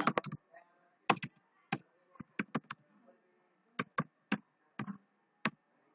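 Computer keyboard being typed on slowly, about a dozen separate keystrokes in small irregular groups with short pauses between them.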